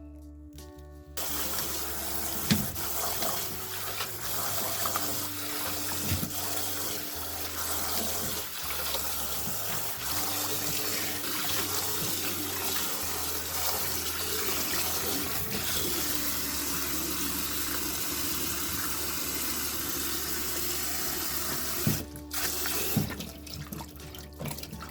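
Water running from a tap into a sink, with splashing and a few knocks; it starts about a second in and shuts off near the end. Background music plays underneath.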